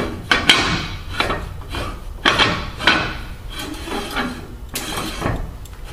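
A 6-inch chrome-plated fire pump suction cap being screwed by hand onto its suction inlet: a run of metallic clinks and knocks, roughly one every half second to second, with scraping of metal on the threads between them.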